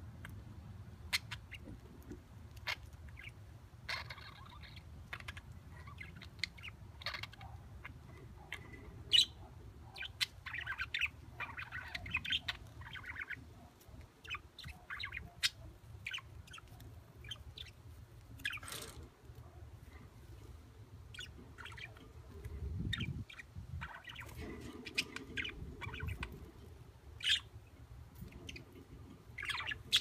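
Exhibition (English) budgerigar chirping and chattering softly on and off, with many small scattered clicks and one falling call about two-thirds of the way through, over a low steady hum.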